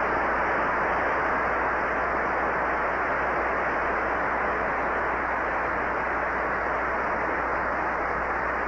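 Large audience applauding, a steady dense wash of clapping that eases slightly near the end.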